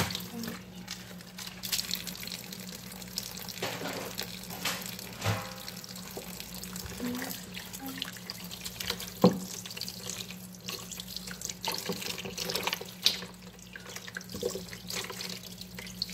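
Hands sloshing and rubbing raw chicken hearts in a basin of water in a kitchen sink, with irregular splashing and dripping. There are a couple of sharper knocks against the basin, the loudest about nine seconds in, over a steady low hum.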